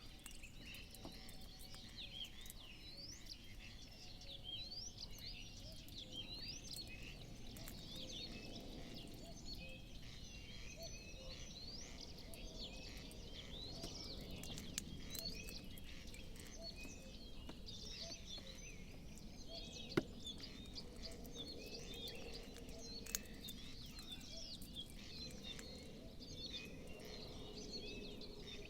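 Many small birds chirping and calling, a dense, unbroken chorus of short high calls, with a few sharp clicks in between.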